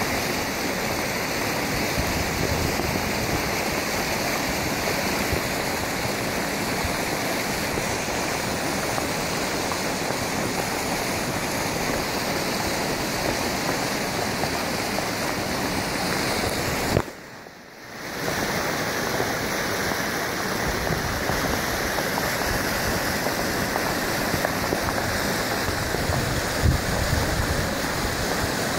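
Sediment-laden flash-flood water rushing down a shallow river channel, a steady rushing hiss. The sound cuts out for about a second some two-thirds of the way through.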